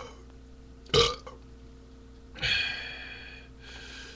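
A man belching beer burps: one short, loud burp about a second in, then a longer, drawn-out burp that fades, and a fainter one near the end.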